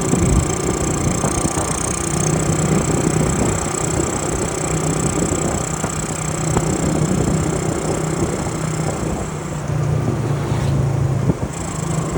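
Honda C70 motorcycle's small single-cylinder four-stroke engine running steadily while riding, its note rising and falling a little as the throttle changes.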